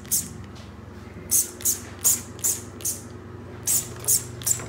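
Hand spray bottle of polish squirting onto a painted plastic RC car body in nine short, sharp hisses: one, then a quick run of five, then three. A faint steady hum lies underneath.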